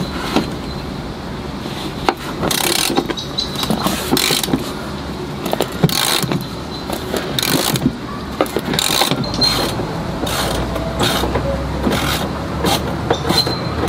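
Hand tools clinking and scraping on metal in short, irregular bursts as the bolts holding a seat frame to a van's steel floor are worked loose.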